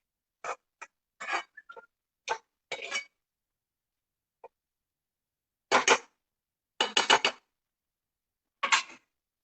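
A cooking utensil stirring and clattering against a pan of vegetable filling. It makes short separate clatters with silences between them, and the loudest clusters come in the second half.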